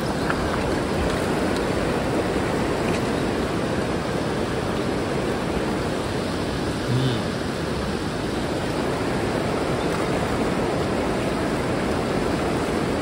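Fast-flowing river current rushing steadily, a constant loud noise of moving water.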